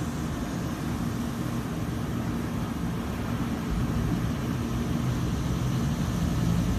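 Steady low rumbling background noise with no distinct events, slightly louder in the second half, and a faint hum running through it.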